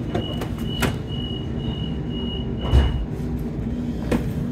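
Knocks and a heavy clunk from a train seat's reversible backrest being swung over, under the steady hum of an electric passenger train carriage. A high thin tone with short breaks stops about three seconds in.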